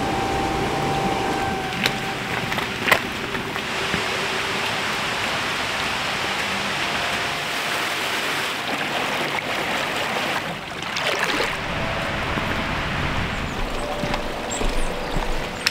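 Rushing stream water running over rocks, a steady dense hiss that dips briefly about ten seconds in.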